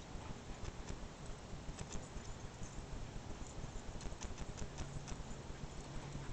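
Paws of two chocolate Labrador retrievers thudding on grass as they gallop around a bush, giving irregular quick thumps throughout. A low steady hum joins for a moment near the end.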